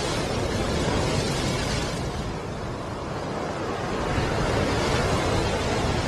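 Ocean waves breaking, a rushing surf that eases about two seconds in and swells again toward the end.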